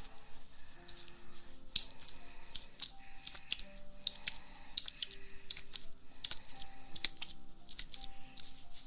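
Close-up ASMR ear work: rubbing on the ear with many crisp crackling clicks, over soft background music with slow, held notes.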